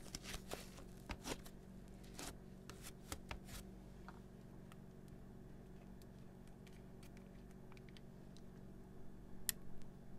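Hands squishing and kneading thick slime, a quick run of small sticky crackles and pops for the first few seconds, then only sparse faint clicks over a low steady hum. A sharper click comes near the end.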